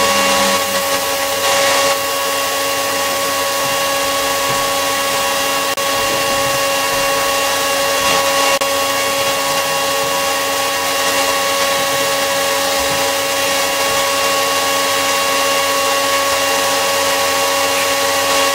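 An electric power tool's motor running steadily at one constant speed, a steady whine over a hiss.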